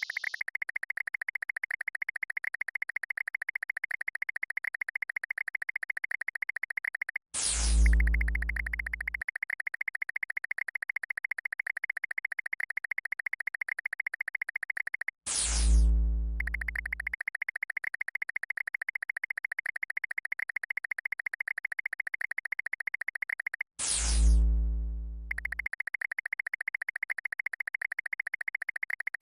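Synthesized sound effects for a cat laser-pointer game: a steady, rapidly pulsing high electronic chirr. It is broken three times, about eight seconds apart, by a zap that falls in pitch over a loud deep boom.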